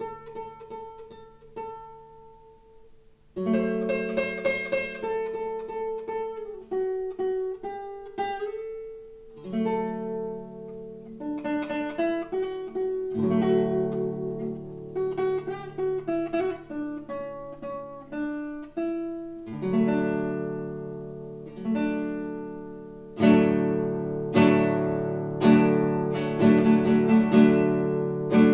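Solo classical guitar playing a slow piece of plucked notes and chords. It opens with a soft ringing chord, moves into steadier playing about three seconds in, and grows louder with firmly struck chords near the end.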